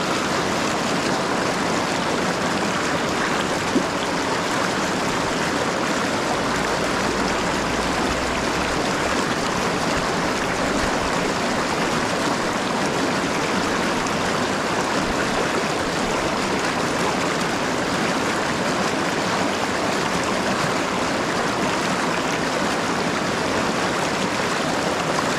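River rapids rushing, a steady, even noise of fast water.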